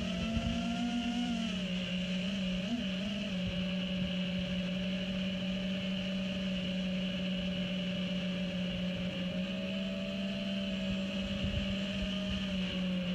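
FPV quadcopter's brushless motors and tri-blade propellers humming steadily in flight, the pitch shifting a little with throttle: slightly higher in the first second or so, a brief wobble about three seconds in, rising near the end. Wind rumbles on the onboard camera's microphone.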